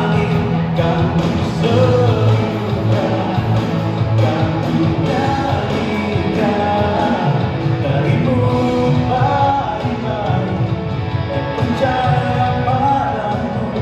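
Live band playing a rock-style song, with electric guitar and a lead vocal singing over it.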